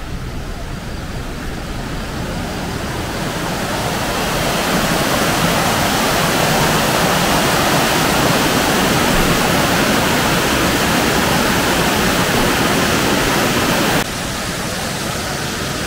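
Waterfall rushing steadily, growing louder over the first few seconds, then dropping suddenly about fourteen seconds in.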